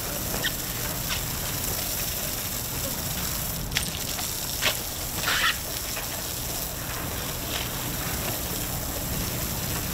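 Garden hose nozzle spraying water onto dock decking, a steady hiss of spray, with a few brief knocks about halfway through.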